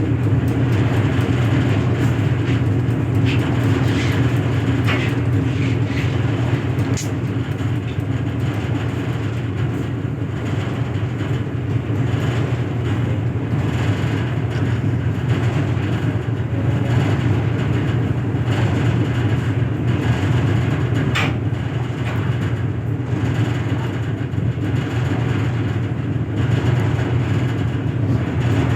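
Steady low engine drone, running evenly without a change in pitch, with a few faint clicks over it.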